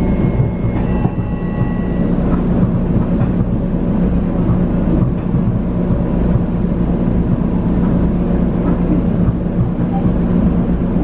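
Steady rumble of an electric commuter train running slowly on its tracks, heard from inside the passenger car, with faint steady motor whine tones above it.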